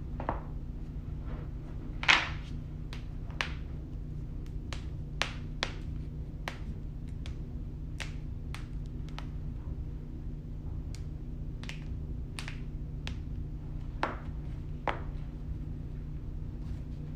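Joints cracking: a string of about twenty sharp pops at uneven spacing, the loudest about two seconds in, over a steady low hum.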